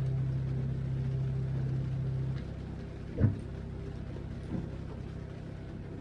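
Steady low hum of onboard machinery in a boat cabin. A deeper drone in it cuts off suddenly about two and a half seconds in, and there is a single sharp knock a little after three seconds.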